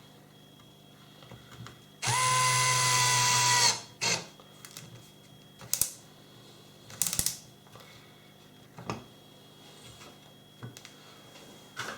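Power drill-driver running in one steady burst of about a second and a half, driving a short wood screw, its whine dropping slightly as it stops; a few light clicks and knocks of handling follow.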